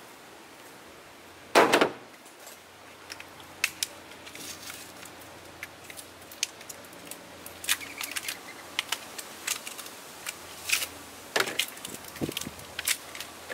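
A single thump about a second and a half in, then many small metallic clicks and clinks as steel spring snap links are handled and taken off their card packaging.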